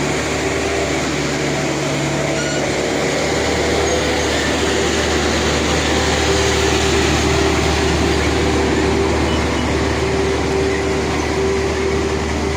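Road roller's diesel engine running steadily at a constant speed. About three seconds in, the low hum shifts and then holds steady.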